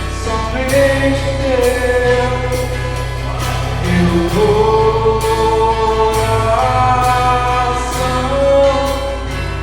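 Live worship song: singing in long held notes that slide from pitch to pitch, over acoustic guitar and a drum kit keeping a steady beat with cymbals. Recorded through a phone's microphone.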